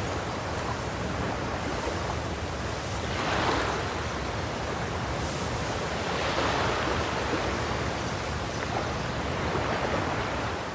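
Ocean surf: a steady rush of waves that swells twice.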